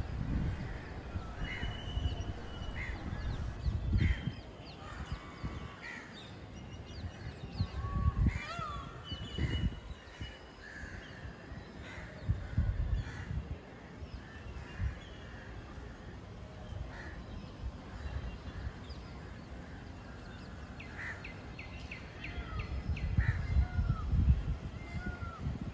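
Peafowl and other birds calling: many short chirps and gliding calls, with a run of calls near the end, over an intermittent low rumble.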